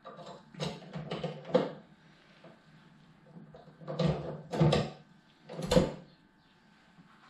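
Metal clanks and clicks as a pannier-frame bracket and a hand tool are handled and fitted onto a motorcycle's rear frame: a few light knocks early, then three louder ones, the loudest near the end.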